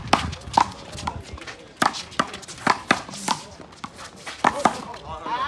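A one-wall handball rally: the small rubber ball slapped by players' hands and smacking off the concrete wall and court, an irregular string of sharp slaps and bounces.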